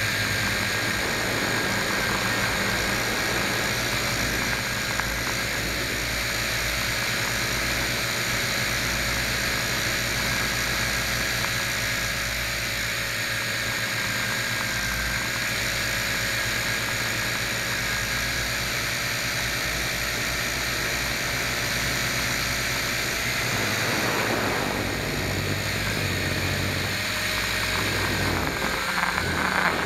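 Motor and propeller of a small remote-controlled aircraft, heard from its onboard camera: a steady whining drone whose tone shifts about three quarters of the way through as the aircraft manoeuvres.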